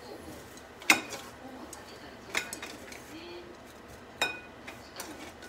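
Chopsticks clinking against ceramic plates as shredded cucumber is moved and arranged: about four sharp clinks spaced a second or more apart, the first the loudest.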